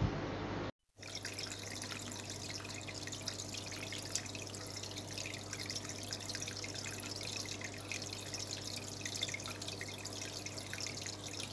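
Water trickling and dripping steadily over a low, steady hum, typical of an aquarium filter's outflow and pump. It starts after a brief dropout about a second in.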